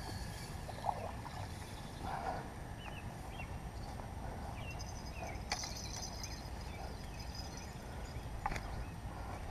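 Quiet outdoor ambience: a steady low rumble with faint short chirps scattered through it and two sharp clicks, one about halfway through and one near the end.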